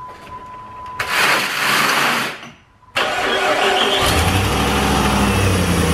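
Jeep Grand Cherokee engine being started for the first time after fresh spark plugs and a new air filter: a steady beep for about a second, the starter cranking, then the engine catches with a burst about halfway through and settles into a steady idle.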